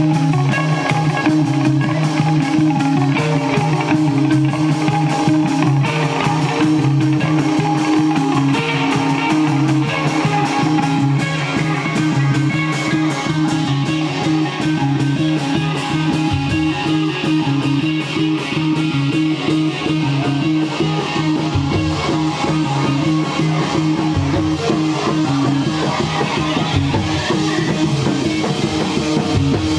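A live instrumental rock band, with electric guitar, bass guitar and drums, plays a slow, droning passage of long held notes. A few scattered bass drum hits come in during the second half.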